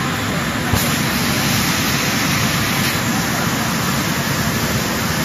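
Machinery of a wood veneer sanding and UV roller-coating line running, a loud steady noise without a clear rhythm. There is a single brief knock about a second in.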